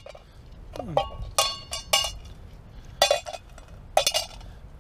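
Small stones dropped one after another into an aluminium camping pot: about six sharp metallic clinks, each ringing briefly.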